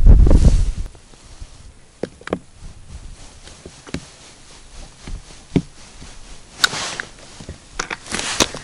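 Handling noise from hands and clothing working a fish and a small ice-fishing rod: a low rumble in the first second, then scattered light taps and clicks, and two short rustles in the last two seconds.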